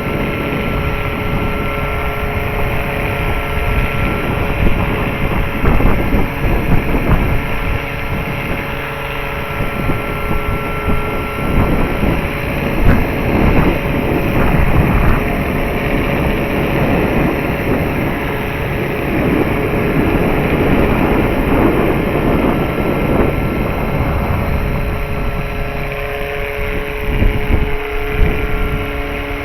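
Large electric RC scale helicopter (Eurocopter BK117) flying: a steady electric motor whine and rotor sound whose pitch shifts now and then. Gusty wind buffets the microphone.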